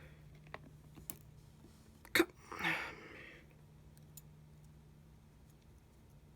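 Light clicks and taps of small tools on an opened iPhone 6 Plus during reassembly, with one sharp click about two seconds in followed by a brief breathy vocal sound.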